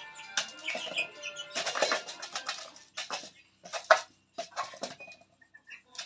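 Background music with young aseel chickens scuffling and flapping their wings: a cluster of short, noisy bursts from about one and a half seconds in, then several separate ones about half a second apart, and a faint chirp near the end.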